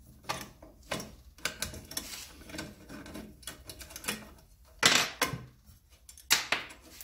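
Small metal parts being handled on a cut-off saw's blade guard: an Allen key, screw and flange washers clicking and clinking, with irregular taps. The loudest clacks come about five seconds in and again near the end.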